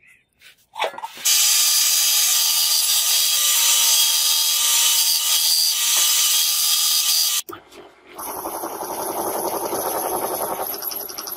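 A power saw with a thin blade cutting a brass plate, a loud steady whine that stops abruptly. About a second later a metal lathe cuts the edge of a brass disc, a quieter sound with a fast, even rhythm.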